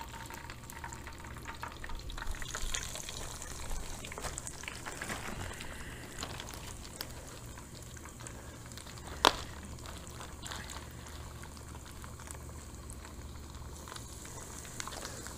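Breaded bream frying in hot oil in a skillet on a propane camp stove: a steady sizzle and bubbling, with small crackles as fresh pieces are laid into the oil. A single sharp click about nine seconds in.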